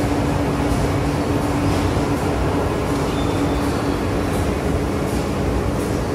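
High-speed rotary die-cutter for corrugated cardboard running, a steady low rumble with a constant hum and faint irregular ticks.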